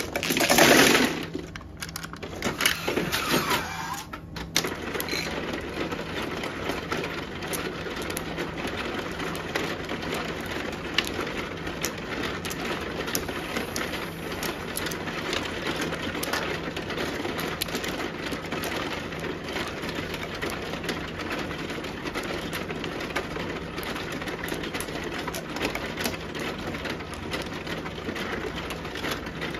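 Automatic mahjong table: a loud clatter of tiles pushed down into the centre opening, then the table's shuffling mechanism running with a steady hum under many quick clicks of tiles being picked up and set in rows.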